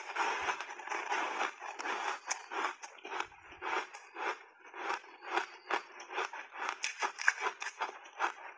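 Chunks of refrozen ice coated in matcha powder crunched between the teeth, picked up close by a lapel microphone: a steady run of sharp crunches, about three a second.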